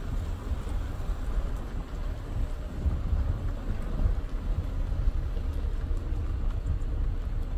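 Low, uneven rumble of a Kia Soul driving slowly, with road noise and wind buffeting the microphone through the open window.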